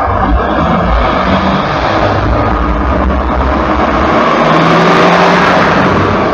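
Heavy highway traffic passing close: a minibus, light trucks and cars driving by, engine noise and tyre noise in a continuous din. It swells a little about four to five seconds in as a truck goes past.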